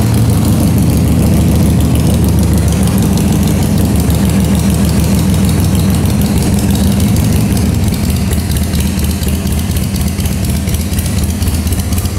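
2005 Harley-Davidson Sportster 883's carbureted 883cc air-cooled V-twin idling steadily through Screaming Eagle mufflers, just after being started with the choke pulled a little.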